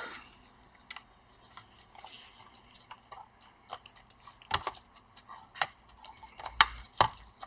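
Hard drive being fitted back into a laptop: a series of scattered small clicks and taps of hard plastic and metal parts being handled and seated, with a few sharper knocks about four and a half, six and a half and seven seconds in.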